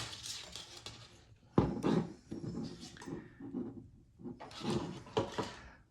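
Hands handling a wheelchair brake cable and handle parts: irregular rustling and scraping, with a sharp knock about one and a half seconds in and more scraping near the end.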